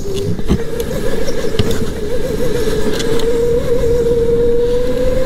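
Electric go-kart's motor whining at a wavering pitch that creeps a little higher near the end, over a steady low rumble, heard from a helmet-mounted microphone. Two light knocks come about half a second and a second and a half in.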